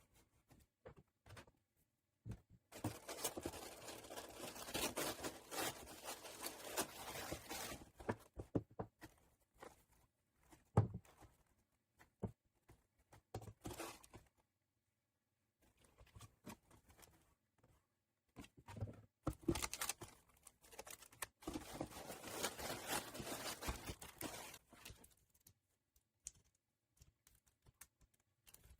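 Paper and packaging being handled and unwrapped: rustling, crinkling and tearing in two long stretches, with scattered taps and clicks in between.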